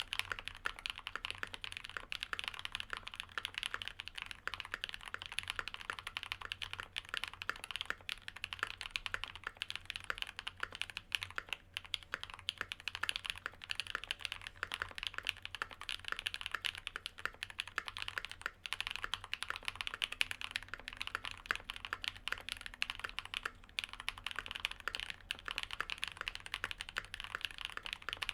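Continuous fast typing on a gasket-mounted aluminium-plate mechanical keyboard with lubed linear switches (Cherry MX Black housings with Kailh black stems) and GMK doubleshot ABS keycaps, a steady stream of muted keystroke clacks with brief pauses now and then.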